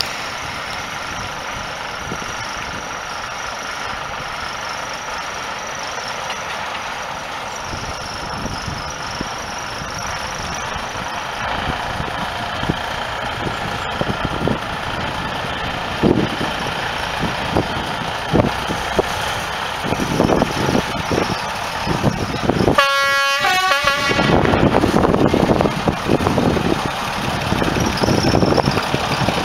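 Small narrow-gauge diesel locomotive running and getting louder as it approaches, with knocks over the track. It sounds one short horn blast about three quarters of the way through.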